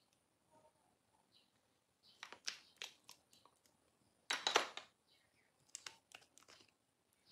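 Makeup containers and packaging being handled: small clicks and rustles, with one louder half-second rustle a little past the middle.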